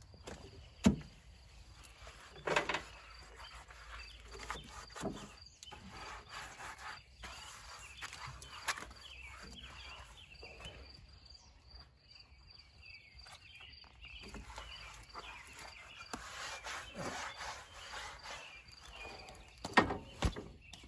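Shoes shuffling and knocking on the steel floor plate and foot pedals of a 1988 Bobcat 543 skid steer, with a few sharp knocks about a second in, near three seconds and near the end. Rustling and scraping in between, over faint insect chirping.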